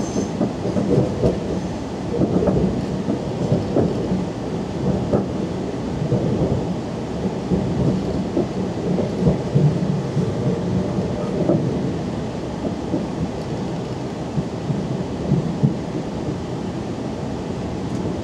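Interior rumble of a Talent 2 electric multiple unit running through a station's pointwork, with the wheels knocking irregularly over points and rail joints over a steady low hum.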